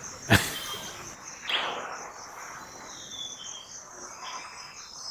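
Nature-sound background of a steady, pulsing high insect trill like crickets, with a few faint bird chirps. A sharp click sounds about a third of a second in, and a short noisy sound falling in pitch follows about a second and a half in.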